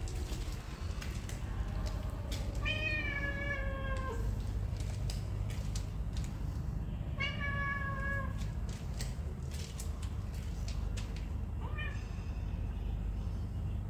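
Domestic cat meowing: two drawn-out meows a few seconds apart, each falling slightly in pitch, then a short one near the end, over a steady low rumble.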